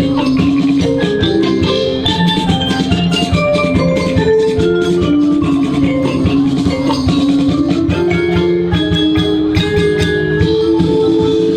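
Percussion ensemble playing a dance tune: a melody on tuned mallet percussion over steady drum strokes.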